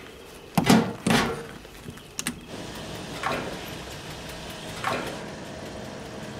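Two loud metallic clunks of a fuel-pump nozzle being handled, a click about two seconds in, then a diesel fuel pump running with a faint steady hum. Two soft breaths come about a second and a half apart over it.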